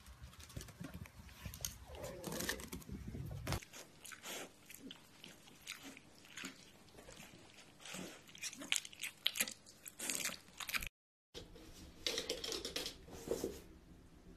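Piglet's small scuffling noises: scattered clicks and crackly rustles as it trots on a hard floor and roots in bedding, with a brief cut to silence about eleven seconds in.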